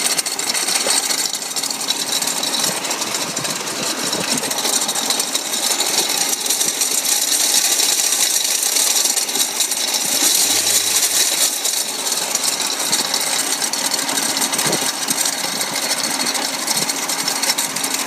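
Hyundai Elantra's failing A/C compressor running with a loud, continuous rattling grind over the engine.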